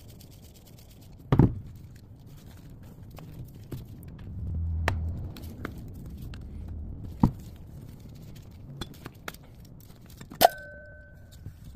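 A screwdriver and a black metal clock case being handled during disassembly: low handling noise with a few sharp knocks and taps. The last and loudest is a metallic clink that rings on briefly.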